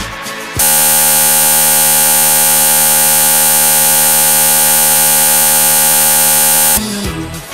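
Loud, perfectly steady electronic buzz, starting about half a second in and cutting off suddenly near the end, between stretches of music.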